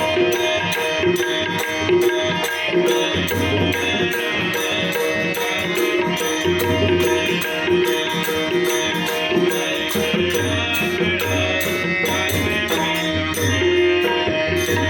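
Marathi devotional bhajan music: tabla and pakhawaj drumming in a dense, even rhythm under steady held tones.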